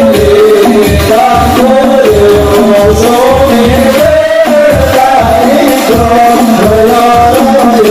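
Hadroh ensemble performing sholawat: men singing a devotional song into microphones over a steady beat of rebana frame drums.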